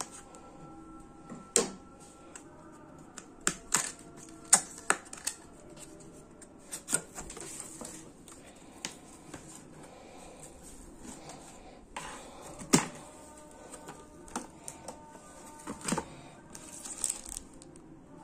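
A cardboard box being cut open and unpacked by hand: a knife slitting the packing tape, then the flaps pulled open, with irregular sharp clicks, knocks and cardboard rustling.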